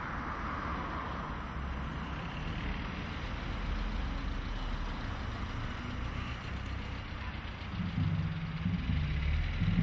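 Passenger car driving slowly past at close range, its engine at low revs with tyre noise on the road. Near the end a steadier low engine hum from another car joins in.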